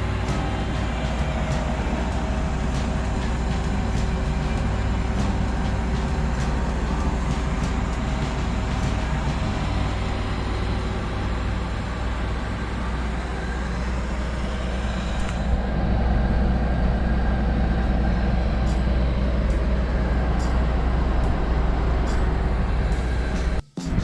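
Large diesel engine of heavy equipment running at a steady idle, a loud low rumble. About fifteen seconds in it grows heavier and duller, and near the end it cuts out for a split second.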